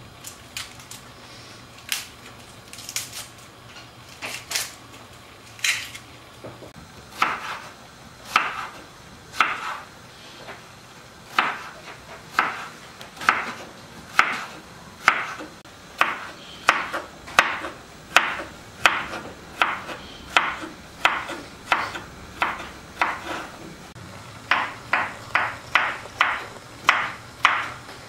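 Knife chopping potato into cubes on a wooden cutting board: a few scattered strokes at first, then a steady run of about one a second, quickening to about two a second near the end.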